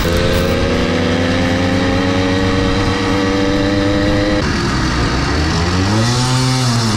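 80cc motorized bicycle engine running on the road, its pitch climbing steadily for about four seconds. After an abrupt change, a rev rises and falls near the end.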